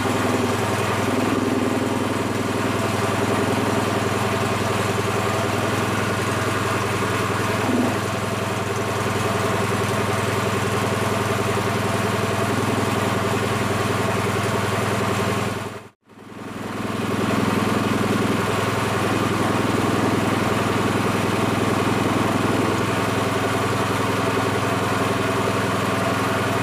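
Small single-cylinder petrol engine of a belt-driven air compressor, running steadily while it fills the tank with air. The sound cuts out for an instant about two-thirds of the way through.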